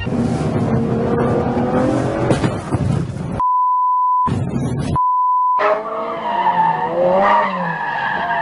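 Car engine and road noise inside the cabin, the engine note rising as it speeds up. The sound is then cut by two steady censor beeps, and near the end a wavering, pitched sound with several bending tones follows.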